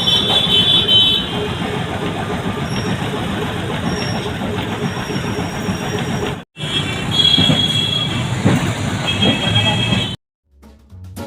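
Kolkata tram and street traffic noise from two joined clips, with a brief cut about six and a half seconds in. High-pitched steady tones sound near the start and again after the cut.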